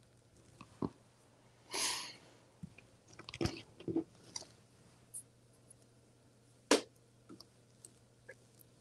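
Stiff poly burlap mesh petals rustling and crinkling as hands handle and fasten them to a wreath form, with scattered small clicks and taps. A longer rustle comes about two seconds in, and a single sharp click near seven seconds is the loudest sound.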